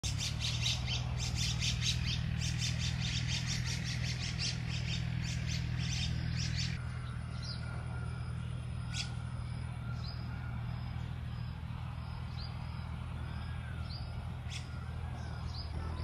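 Small songbirds calling: a fast run of chattering chirps, several a second, for the first seven seconds. It then gives way abruptly to single short chirps about once a second, with a few sharp clicks. A steady low hum runs underneath.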